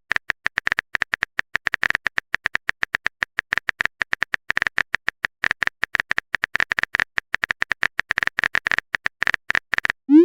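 Typing sound effect: a rapid, irregular run of short keyboard-like clicks, several a second, going on without a break.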